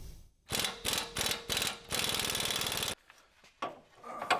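Impact wrench hammering off a sway bar end link nut: several short bursts, then a longer run of about a second that cuts off abruptly about three seconds in. A couple of faint knocks follow.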